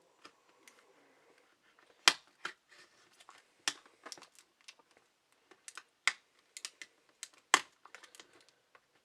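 Retail packaging being worked open by hand: a string of irregular clicks, taps and crackles of plastic and cardboard. The loudest clicks come about two seconds in and again near the end.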